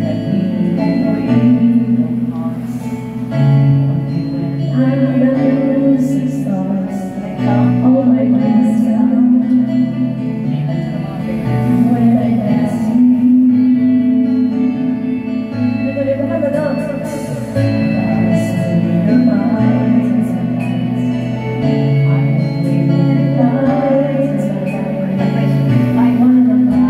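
A woman singing karaoke into a microphone over a backing track with guitar, both played through a loudspeaker.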